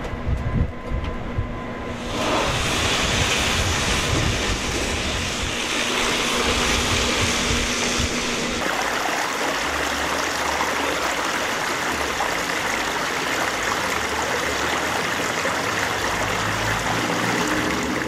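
Steady rushing of rain and running water from a small rock waterfall, changing in character a couple of seconds in and again about eight and a half seconds in, with a low rumble underneath.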